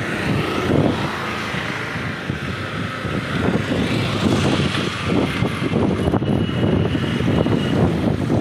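Rushing, buffeting wind noise on the microphone while riding a bicycle along a road, rising a little about three seconds in.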